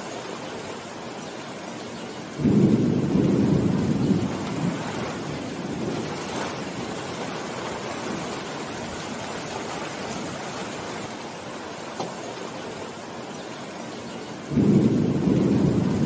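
Steady heavy rain falling on leafy trees, with two low rolls of thunder, one about two seconds in and another near the end.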